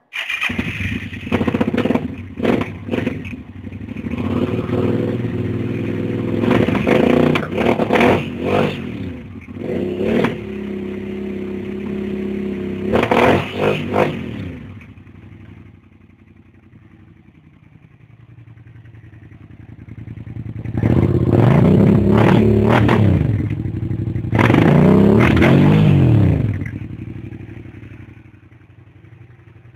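Suzuki SV650S's 645 cc V-twin engine running through a modified aftermarket exhaust, revved in a series of quick throttle blips. It settles back to a lower idle, then is revved twice in longer pulls that rise and fall in pitch, and drops back to idle near the end.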